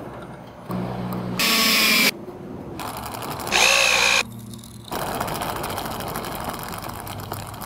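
A power drill driving screws into 2x6 lumber in short loud bursts, its whine rising as the motor speeds up. The bursts come about 1.5 and 3.5 seconds in, with a low motor hum before the first. From about 5 seconds in there is a steady, rapidly clicking mechanical noise.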